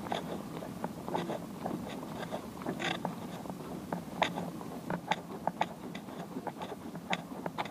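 Footsteps on a concrete jetty with light, uneven clicks and knocks from handling the camera while walking, over a steady low outdoor background.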